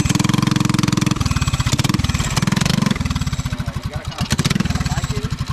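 Small single-cylinder go-kart engine running just after a cold pull start, firing rapidly and given throttle to keep it going, then easing off a little about three seconds in.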